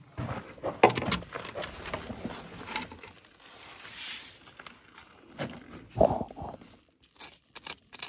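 Scuffs, light knocks and gritty crunching as a metal straightedge is set against a rough granite wall and a carpenter's pencil scrapes along it, with a short scraping hiss about four seconds in and a louder ringing knock about six seconds in.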